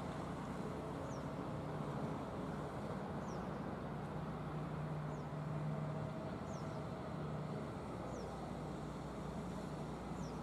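Hitachi ZX200 hydraulic excavator's diesel engine running steadily under working load while it dumps and swings. Its low hum fades and returns a few times.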